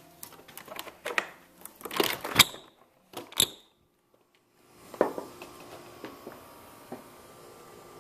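Clicks and knocks of a door being opened and passed through, with camera handling, the loudest knock about two and a half seconds in and a sharp click a second later. A brief dead silence follows, then a faint steady hiss with a single knock.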